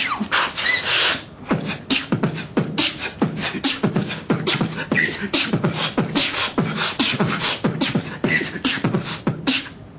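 A man beatboxing: a quick, steady run of mouth-made drum hits, with kick- and snare-like pops and hissing hi-hat-like sounds at a few hits a second. A few brief high tones are mixed in.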